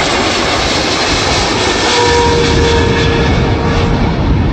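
Qatar Airways Boeing 777 passing low overhead on final approach with its landing gear down, its jet engines giving loud, steady jet noise. A faint whine within the noise drops slightly in pitch in the second half as the aircraft moves past.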